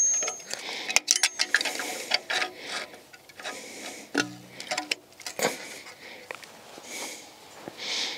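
Irregular small metallic clicks and scrapes of pliers on a parking brake shoe's hold-down pin and clip as the clip is worked onto the pin, with a brief high metallic ring at the start.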